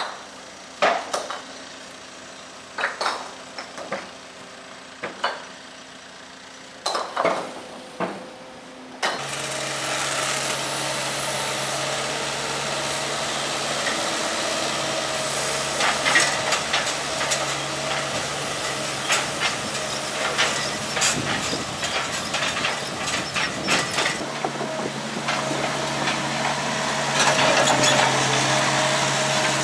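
Sharp knocks about a second apart over a low hum, then from about nine seconds in a heavy machine's engine running loudly, with repeated crunching and knocking as rocks and debris are scooped and loaded.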